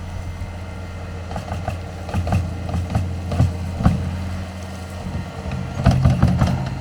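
Tracked skid steer's engine running steadily under load while its bucket scrapes the trail ground, with scattered clanks and knocks from the bucket and tracks.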